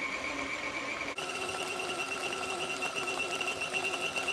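Electric mixer running steadily, its motor whining as it beats thick cake batter; about a second in the whine dips briefly and comes back slightly higher in pitch.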